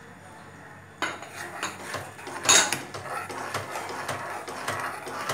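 Steel spoon scraping and clinking against a metal kadai while stirring grated coconut into sugar syrup, starting about a second in, with one louder knock about a second and a half later.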